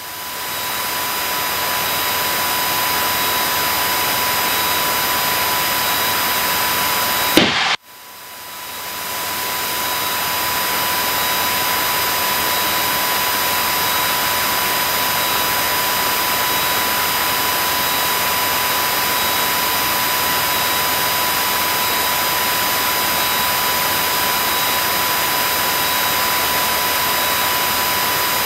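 Steady in-flight cabin noise of a Cessna Skylane single-engine light airplane: engine and wind noise as an even hiss, with a faint steady whine. A few seconds in there is a click, and the noise drops away and swells back over about two seconds.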